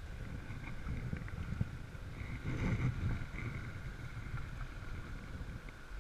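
Kayak paddle dipping into calm sea water, with wind rumbling on the camera microphone; one louder splash of a stroke near the middle.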